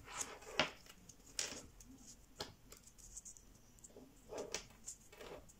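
Sheet of 80 g/m² printer paper crinkling and rustling under the fingers as a squash fold is pressed flat, in a handful of short, irregular crackles, the sharpest about half a second in.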